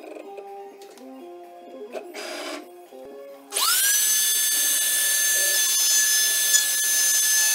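Faint background music, then about three and a half seconds in a homemade CNC router's spindle motor spins up with a quickly rising whine that levels off into a steady, loud high whine.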